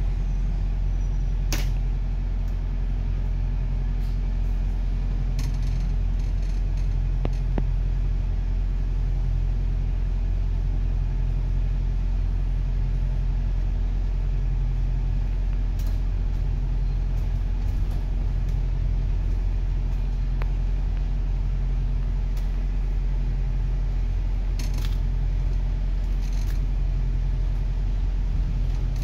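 Double-decker bus running in slow traffic, heard from inside on the upper deck: a steady low rumble with a few brief sharp clicks and rattles.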